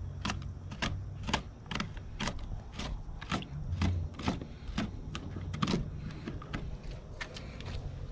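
Knife cutting the meat off a skinned alligator gar with repeated short, crunching strokes, about two a second, over a steady low hum.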